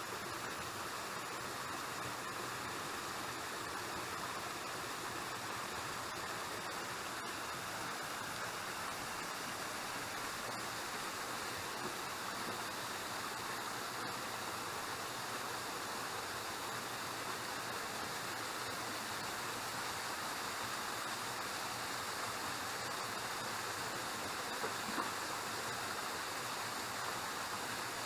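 Waterfall rushing steadily, with a couple of faint knocks near the end.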